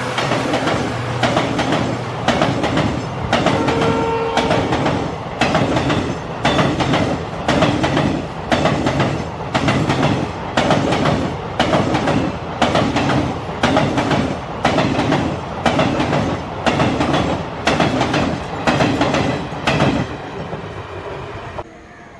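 Passenger train coaches rolling past, their wheels clattering over the rail joints in a steady clickety-clack about every three-quarters of a second. The clatter fades away near the end.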